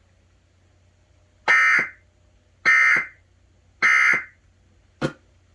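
Emergency Alert System end-of-message data tones: three short, shrill digital squawks about a second apart, closing the flash flood warning broadcast, followed by a brief click.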